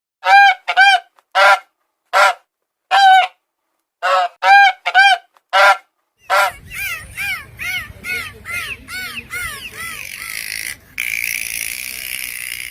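Geese honking: about eight loud, separate honks in the first six seconds, then a faster run of quieter honks over background noise.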